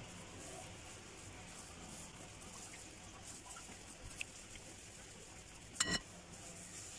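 Silicone spatula stirring a thick yogurt-and-spice marinade in a glass bowl: faint soft scraping and squishing. Near the end comes one sharp clink against the glass, which rings briefly.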